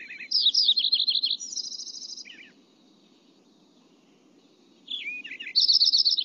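Lincoln's sparrow song, a recording played twice: each song a rapid, bubbly jumble of high chirps and trills lasting about two and a half seconds, the second beginning near the end.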